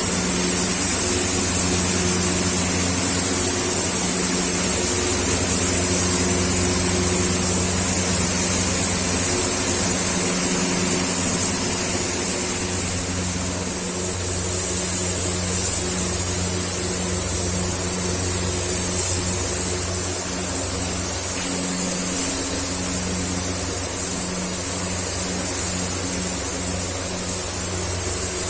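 Spray-painting equipment running: a steady machine hum under a constant high hiss of compressed air, as from a spray gun laying down clear coat on a car body.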